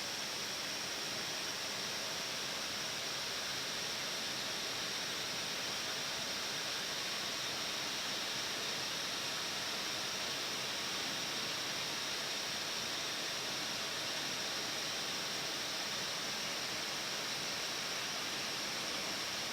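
Steady hiss and hum inside an Airbus A320-family flight deck while taxiing: air-conditioning airflow from the bleed air with the engines at idle.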